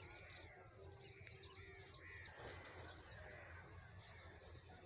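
Faint birds calling in the open fields: a few short high chirps near the start, then longer curving calls, over a steady low rumble.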